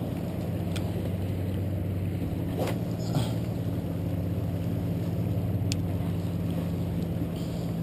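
Steady low drone of a running motor, several low tones held unchanged throughout, with a few faint clicks over it.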